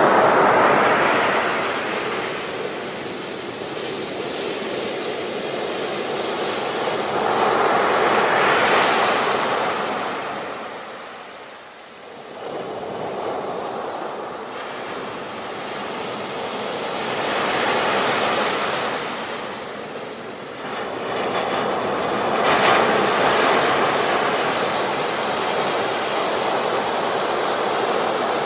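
Ocean waves breaking on a beach, the surf rising and falling in slow swells: the loudest near the start, around 8 s and around 23 s, with a short lull near 12 s.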